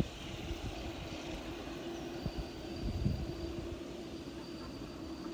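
Boeing 787-8 Dreamliner's jet engines running at low taxi power. A steady hum over an uneven low rumble, with a thin high whine that sets in about two seconds in.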